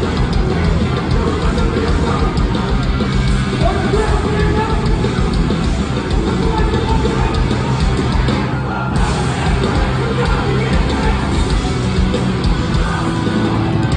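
Hardcore punk band playing live and loud: distorted electric guitars, bass and drums.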